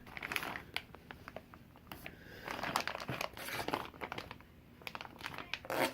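A plastic bag crinkling and rustling as it is handled, with scattered clicks and taps.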